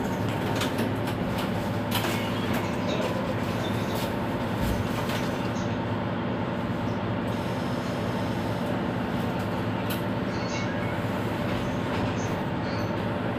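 Mercedes-Benz Citaro C2 city bus engine idling steadily while the bus stands still, heard from just behind it.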